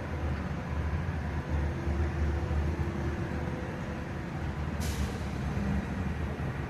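Heavy diesel equipment running steadily, with a short hiss of released air about five seconds in.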